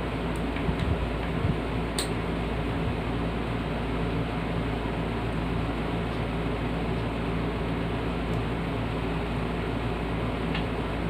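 Electric fan running with a steady hum and whir, with a single sharp click about two seconds in.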